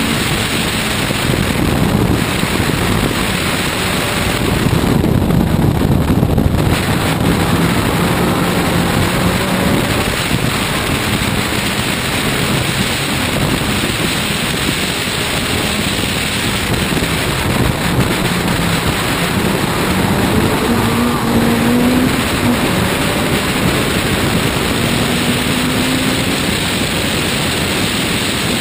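Race car engine running at speed around a circuit, its pitch rising and falling, under a steady rush of wind noise on the microphone.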